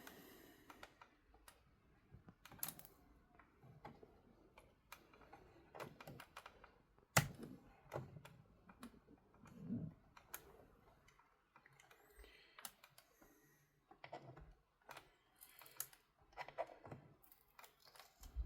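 Faint, scattered clicks and scrapes of a Razer Ornata Chroma keyboard being handled while small plastic covers are picked off its underside to reach hidden screws, with one sharper click about seven seconds in.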